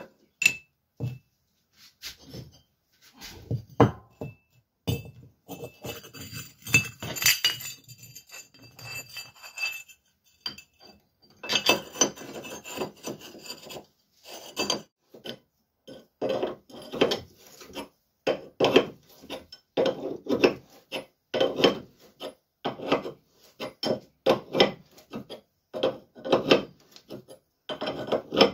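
Clinks and scraping of metal parts as a homemade stud-and-nut puller is set up to press a new rubber-metal silent block into the Lada Priora's strut rod bracket. About halfway through, a wrench starts turning the nut in regular rasping strokes, each just under a second apart, drawing the bushing in.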